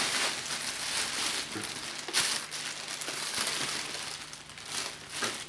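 Clear plastic bag crinkling and rustling in irregular bursts as it is pulled off a new upright vacuum cleaner.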